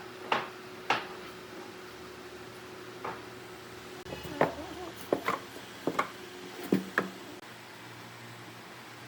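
Irregular knocks and clacks of hard objects being handled and set down, about ten in all, several in quick pairs near the middle and end, over a faint steady hum.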